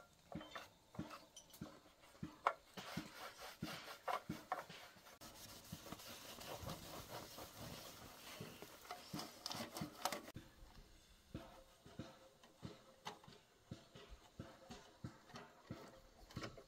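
A cloth rubbing over the metal of a walking tractor's diesel engine in repeated wiping strokes, with light knocks and clicks. A steadier stretch of scrubbing runs from about five seconds in and stops sharply around ten seconds.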